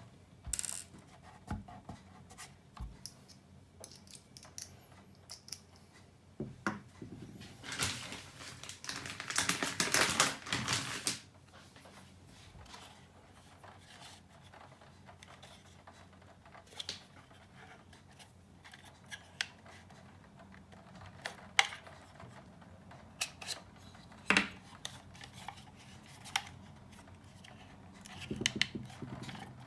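Scattered clicks, taps and scrapes of small parts and tools being handled while taking apart an electronic amplifier, with a longer stretch of scraping and rustling about eight to eleven seconds in and a few sharp clicks later.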